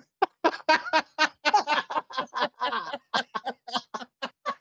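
Laughter: a fast run of short breathy bursts, about five a second, slowly fading.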